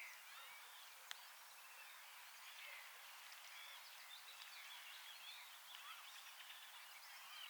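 Faint birdsong: many short chirping and warbling calls from several birds over a quiet background hiss, with one sharp click about a second in.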